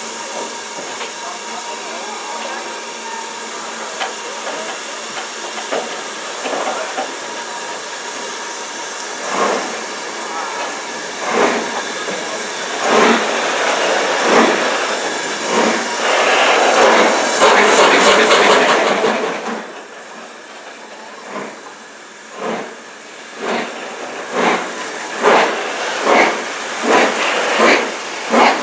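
BR Standard Class 4MT 75078, a two-cylinder 4-6-0 steam locomotive, starting a train from a stand: a steady steam hiss at first, then slow exhaust chuffs that quicken toward the end as it gathers speed, with a loud rush of steam for a few seconds in the middle.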